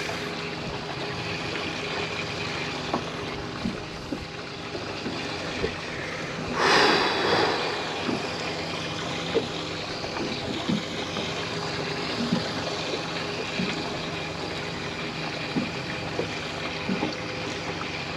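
Ambience aboard a small fishing boat at sea: a steady wash of water and wind with a faint steady hum. A few small clicks and knocks come through, and a louder rush of noise lasts about a second roughly a third of the way in.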